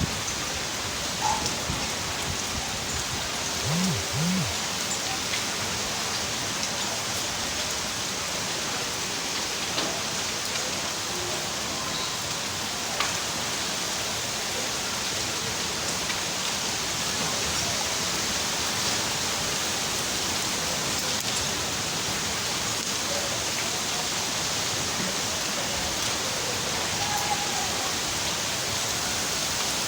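Steady rain falling: an even hiss with a few sharper drip ticks here and there.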